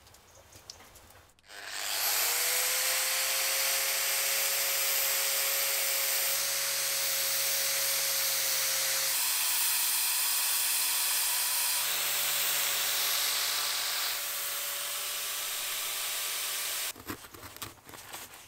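Electric angle grinder fitted with a polishing pad: the motor spins up with a rising whine about two seconds in, runs steadily for some fifteen seconds, and cuts off abruptly near the end.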